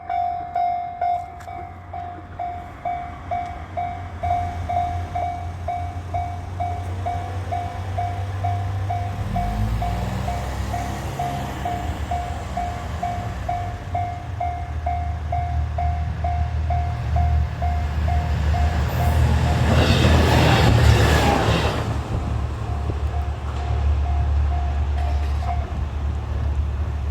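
Japanese level-crossing warning bell ringing steadily at about two strokes a second while a diesel train approaches with a building low engine rumble. The train passes over the crossing with loud wheel-on-rail noise about two-thirds of the way through. The bell stops near the end.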